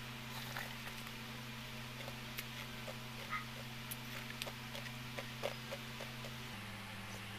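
Small clicks, sips and mouth sounds of someone eating halo-halo from a paper cup with a plastic spoon, over the steady low hum of an electric fan, which drops slightly in pitch about six and a half seconds in.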